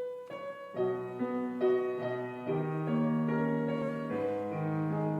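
Piano playing the introduction to a choral song: a single note, then a second, then slow sustained chords from about a second in.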